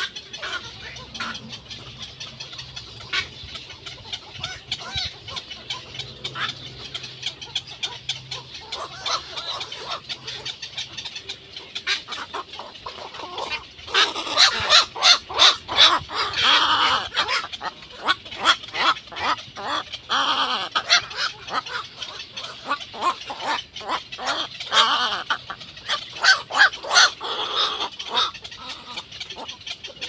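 Egret chicks giving rapid clicking, chattering begging calls while being fed by the parent, loudest in a burst about halfway through and again near the end.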